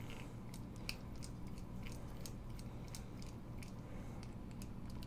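Faint, irregular small clicks and scrapes of a steel screwdriver bit turning tiny handle screws out of a folding knife, over a low steady hum.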